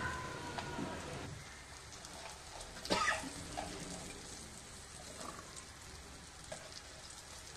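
Chopped okra frying in hot oil and onion masala in a kadai, a faint steady sizzle, with one sharp knock about three seconds in.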